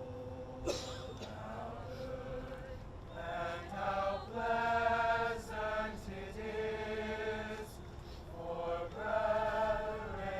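High school choir singing long, held chords that swell louder in the middle and again near the end.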